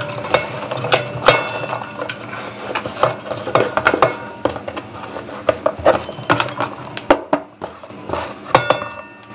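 Chopped onions being scraped by hand off a plastic cutting board into a stainless steel bowl: a run of irregular knocks and clatters as the board and onion pieces hit the bowl, with the steel bowl ringing briefly after a few of them.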